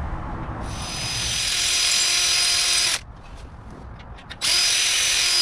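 Electric drill drilling out a rivet with a steady motor whine. It runs for a couple of seconds, stops briefly and starts again. The bit is one the driller finds blunt ("really poo").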